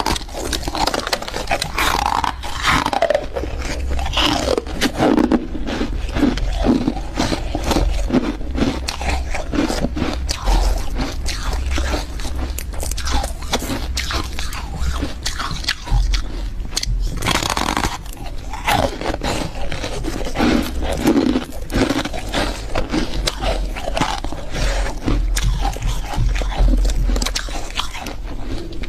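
Refrozen freezer frost being bitten and chewed: a dense, unbroken run of crackling crunches.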